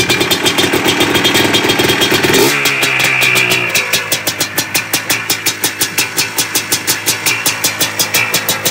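Yamaha Blaster's single-cylinder two-stroke engine running. It is revved for the first couple of seconds, then drops to a pulsing idle of about four or five beats a second.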